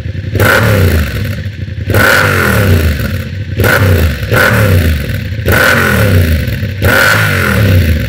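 Yamaha MT-07's 689 cc parallel-twin, fully warmed up, blipped repeatedly through an Arrow Works exhaust on racing headers with the DB killer still fitted. Each blip revs up sharply and falls back toward idle, several times in a row. The sound hits hard in the chest.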